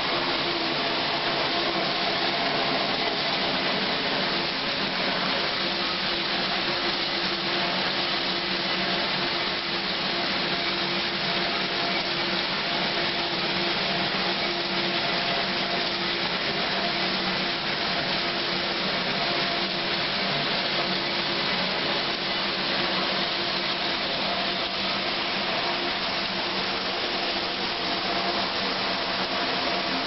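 KitchenAid KDA-5 portable top-loading dishwasher running mid-cycle: a steady whir of its motor with water spraying inside the closed tub.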